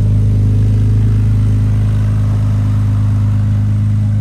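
A car engine running at a steady speed: a loud, constant low drone that holds one pitch throughout, with no revving.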